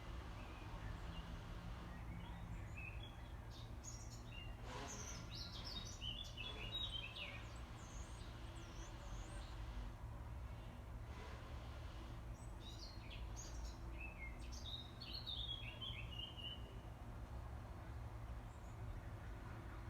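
Small birds chirping and twittering in quick clusters, busiest about a quarter of the way in and again past the middle, over a steady low background noise.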